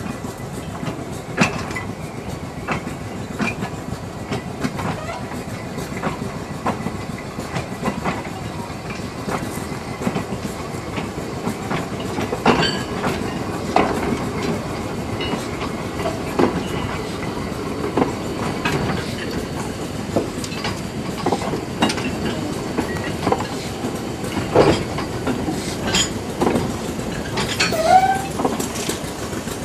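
Narrow-gauge goods vans rolling slowly along the track, wheels clicking and knocking irregularly over rail joints with clanks from the running gear, several louder knocks in the second half.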